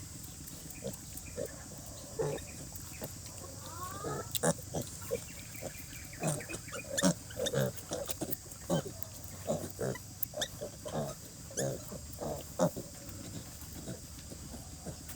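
Sow and piglets grunting: many short, irregular grunts, with a brief rising squeal about four seconds in.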